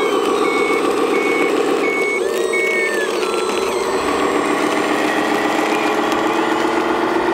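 1/14-scale RC Volvo A40G articulated dump truck reversing: its reverse alarm gives about five evenly spaced beeps over the first three seconds and then stops, over a steady simulated diesel engine drone.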